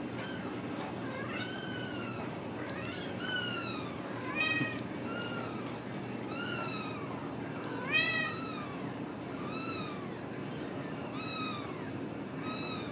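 Ragdoll kittens meowing repeatedly: about a dozen short, high-pitched mews, roughly one a second, each rising and then falling in pitch.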